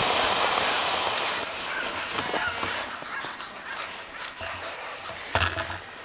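Harnessed sled dogs whining and yipping a few times while the team stands stopped, eager to run. A hiss of wind or runner noise fades out over the first second and a half, and there is a single sharp knock near the end.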